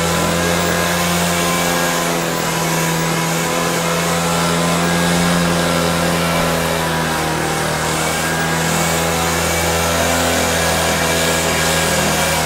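Gas-powered backpack leaf blower running steadily at working speed, a constant engine drone with a rush of blown air.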